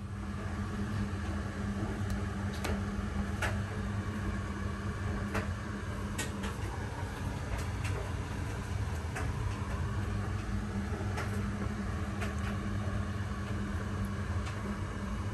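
Steady low electrical hum from a running kitchen appliance, with scattered light clicks and wet handling noises as soaked salt cod is lifted from a bowl of water and set into a stainless steel pot.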